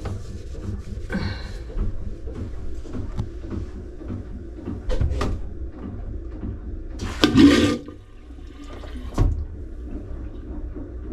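Boat toilet being flushed while antifreeze is run through its plumbing for winterizing: a low steady rumble with a few knocks, and a loud short rush about seven seconds in.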